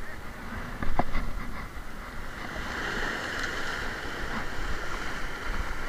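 Sea surf washing and breaking over shoreline rocks, a steady rushing, with a short sharp click about a second in.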